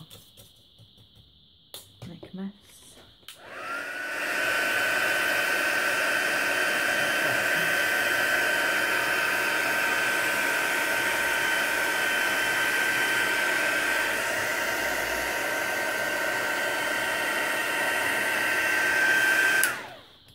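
Handheld craft heat gun, after a couple of knocks, switched on about three seconds in: its fan spins up to a steady whine with a rush of hot air, re-melting wax into the thin spots on the paper. It runs steadily, then is switched off and winds down near the end.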